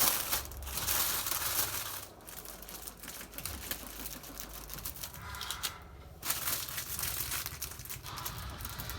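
Crinkling and rustling of packaging being handled, in irregular bursts with brief pauses.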